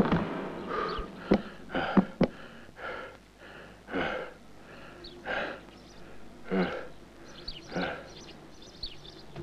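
Sparse animated-film sound effects: a few sharp clicks early, then short breathy puffs about once a second, with faint high chirps near the end.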